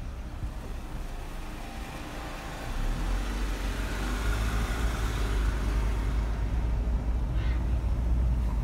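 Car driving, heard from inside: engine and road noise, with a low rumble that grows louder about three seconds in.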